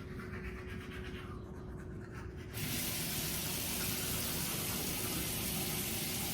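Water turned on at a tap about two and a half seconds in, then running steadily with an even rush, after faint handling sounds.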